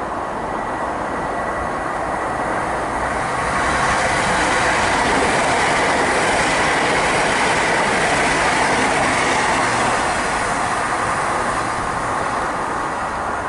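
A five-car Great Western Railway Class 800 bi-mode train passing through the station at speed. The noise swells about four seconds in, holds for several seconds, then eases off near the end.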